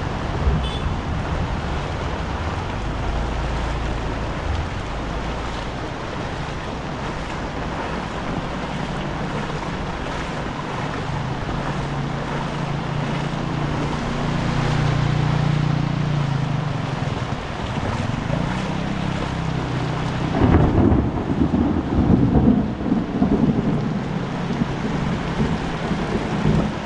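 Heavy rain pouring steadily. Midway a low drone swells and fades, and about twenty seconds in a louder low rumble comes in suddenly and lasts a few seconds.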